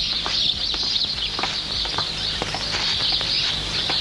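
Outdoor ambience of many birds chirping: a steady, dense high twittering with scattered short chirps.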